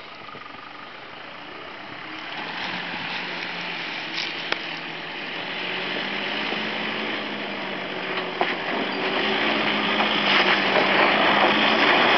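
Nissan Hardbody 4x4 engine pulling steadily up a dirt slope after a water crossing, growing louder as the truck comes closer, with a few short knocks along the way.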